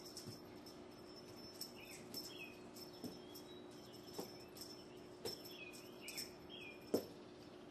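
Kittens playing with a dangling wand toy on carpet: light clicks, rustles and taps from the toy and their paws, with a louder thud about seven seconds in as one lands. Short high chirping calls come and go over a steady low hum.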